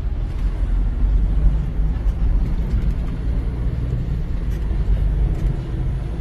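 Semi truck's diesel engine heard from inside the cab: a steady low rumble as the truck drives along.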